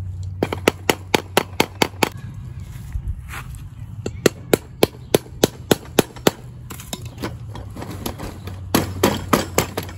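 Hand tool clicking sharply against the wheel hardware while wheels are fastened onto a chicken-tractor lift axle. The clicks come about four a second in three runs: one at the start, one in the middle and a short one near the end.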